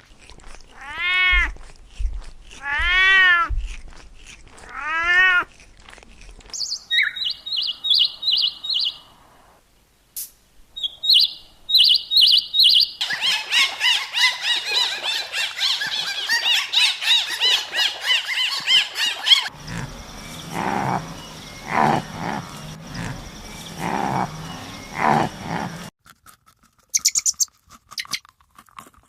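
A run of different animal calls. First come three drawn-out calls, each rising and then falling in pitch. Then rapid, high bird chirping, dense from about thirteen seconds in. After that comes a rougher stretch of lower animal noises.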